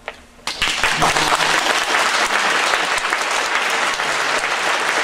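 Audience applause, breaking out about half a second in and continuing as steady clapping.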